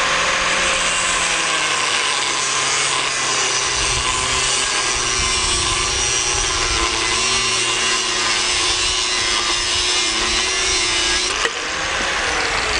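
Hitachi 125 mm angle grinder cutting through a metal bar held in a vise: a steady motor whine over the rasping of the cut-off disc, its pitch dragged down a little under load. Near the end the cut breaks through, the motor briefly speeds up, and then it starts to wind down.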